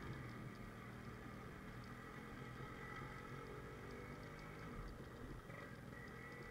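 Yamaha RX100's two-stroke single-cylinder engine running steadily as the motorcycle rides along a dirt track.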